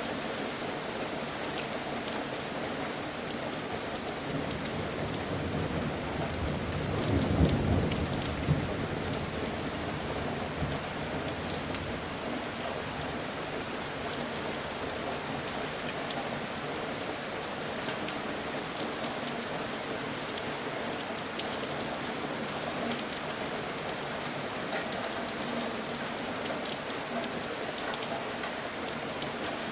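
Steady rain falling, with a brief low rumble of thunder about seven seconds in.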